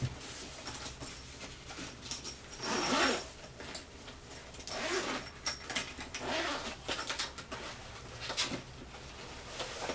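Rustling and handling noises as the LED ring light is picked up and readied for mounting, in several irregular bursts with a few small clicks.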